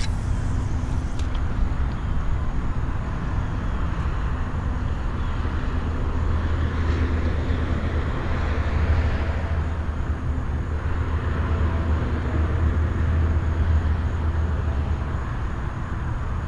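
A steady low engine drone with a wash of noise over it, which swells briefly about halfway through.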